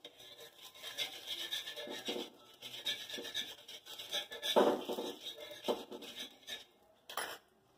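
Steel spoon scraping and rubbing across an iron tawa, spreading ghee over the pan in repeated rasping strokes, with louder scrapes about two and four and a half seconds in. A short knock near the end.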